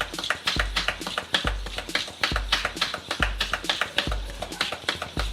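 Background music with a steady beat: a deep bass thud about once a second under fast, clicky percussion.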